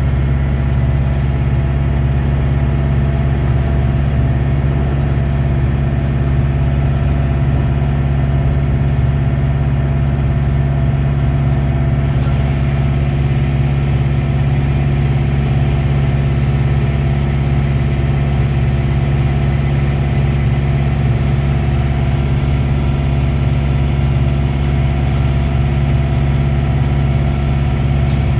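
Locomotive engine running at a steady speed while the train rolls along the track, heard from the cab over the hood.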